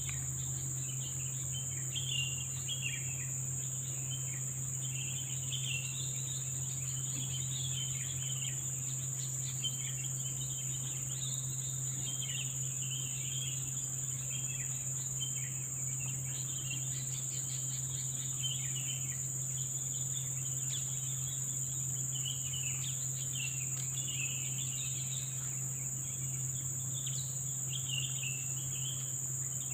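Steady high-pitched drone of forest insects, with scattered short chirps and warbling calls throughout and a low steady hum underneath.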